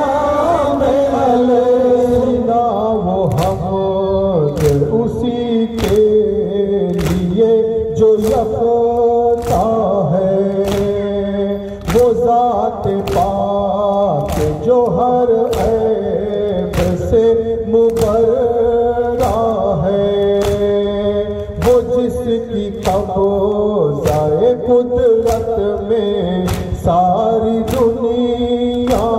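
A group of men sings an Urdu nauha (lament) in unison, with the steady slaps of chest-beating (matam), about one and a half a second, starting a few seconds in.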